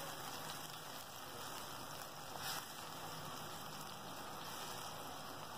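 Kokum-and-chilli fish curry liquid boiling in a pan, a steady, quiet bubbling hiss. The curry is at a full boil, ready for the fish pieces to go in.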